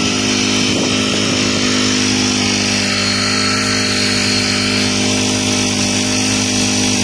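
HTP power sprayer running steadily under load, its motor-driven pump holding an even pitch, with the hiss of a high-pressure mist jetting from a two-way spray nozzle.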